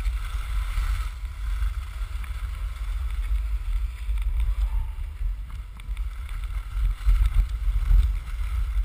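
Wind buffeting a body-worn action camera's microphone as the skier glides down a groomed slope: an unsteady low rumble, with a fainter hiss of skis sliding on the snow.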